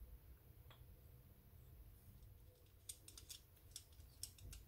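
Faint small clicks and scrapes of a microphone being screwed by hand onto its round desk-stand base, a quick run of them over the last second and a half or so.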